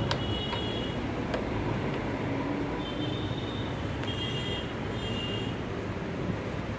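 Steady traffic rumble, with a few short high-pitched beeps about halfway through.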